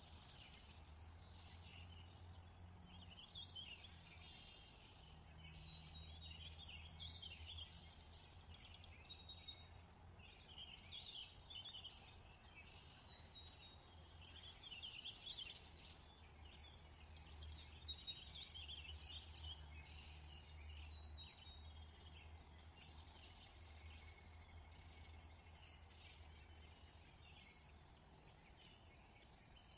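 Faint chorus of birds chirping and calling throughout, over a low steady hum.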